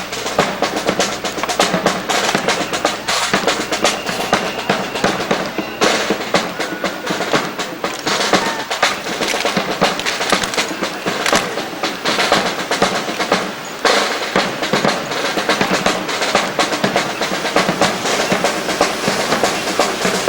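Drums, snare and bass, playing a rapid cadence with rolls.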